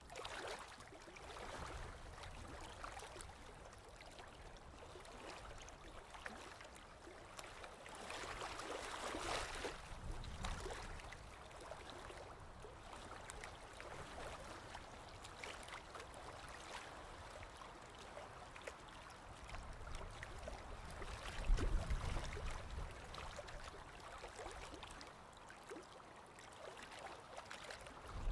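Stream water lapping and trickling, with a steady splashy wash and many small drips and plinks. A low rumble swells twice, briefly about a third of the way in and more strongly a little after two thirds of the way through.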